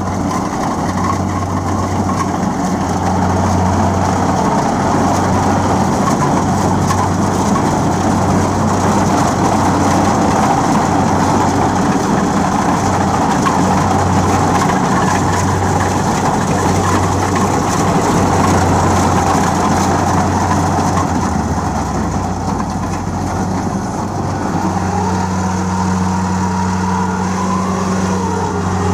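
Kubota DC 70 Plus combine harvester's diesel engine running steadily under load as the machine harvests rice in a flooded paddy; its note shifts near the end.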